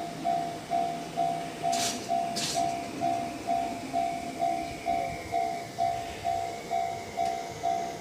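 Japanese railway level-crossing warning bell ringing: an electronic two-tone 'kan-kan' ding repeating a little over twice a second, over the rumble of an approaching train. Two short hisses come about two seconds in.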